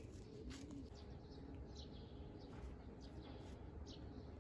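Quiet outdoor ambience: small birds chirping now and then over a low steady rumble.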